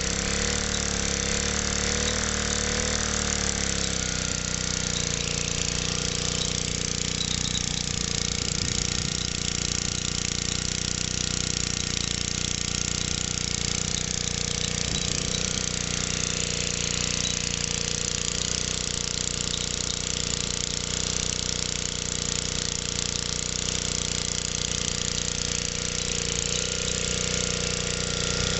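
Small BSA petrol engine running by itself just after a cold start, having sat unused for a couple of months. Its speed wavers for the first few seconds, then settles into a steady, even run.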